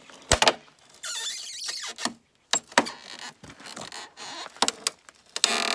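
Plastic chrome grille trim strip being pulled by hand off a Mini Cooper's front bumper: sharp snaps as its clips let go, plastic squealing and scraping against the bumper, more scattered snaps, and a longer loud scrape near the end.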